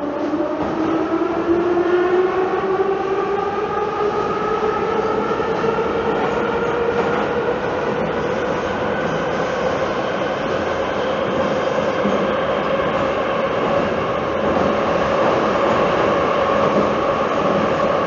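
Metro train accelerating: a whine that rises in pitch over the first few seconds, then levels off into a steady whine over the running rumble of the train cruising between stations.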